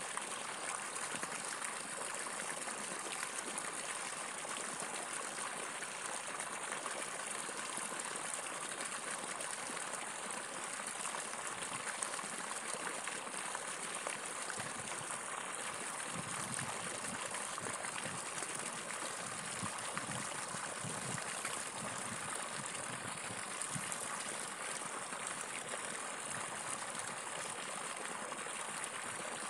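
Water gushing steadily from an irrigation outlet pipe and splashing into a running dirt channel.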